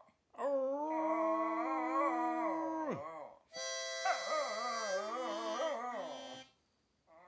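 Schnauzer howling: two long howls, the first held steady and then sliding down in pitch about three seconds in, the second wavering up and down before it breaks off.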